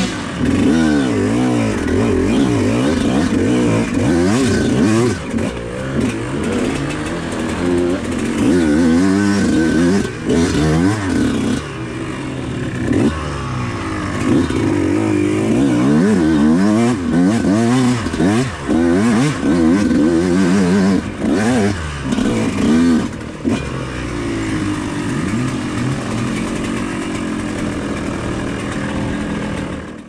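Yamaha YZ125X's two-stroke single-cylinder dirt bike engine, revving up and down again and again as it is ridden off-road.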